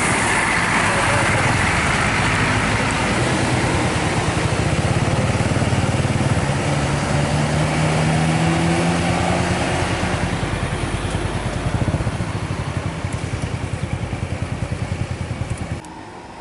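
A high-deck tour bus's diesel engine running loudly as the bus passes close and pulls away up the road, its note rising in the middle, with motorcycle engines alongside. Near the end the sound drops suddenly to quieter vehicle noise.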